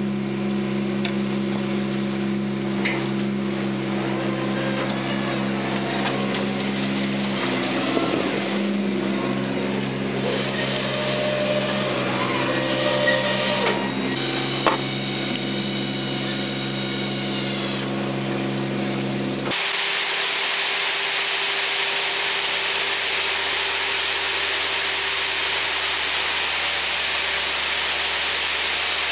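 A fishing boat's engine droning steadily, with scattered knocks and rattles on deck. About two-thirds of the way in, it cuts to the even, steady hiss of machinery on a seafood-processing conveyor line.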